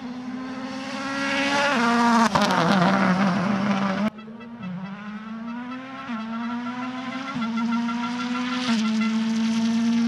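A rally car's turbocharged 1.6-litre four-cylinder engine at full throttle, loudest as it passes about two seconds in, then accelerating away through the gears, its pitch climbing and dropping at each upshift. The sound drops off abruptly about four seconds in, and the engine carries on a little fainter with more upshifts.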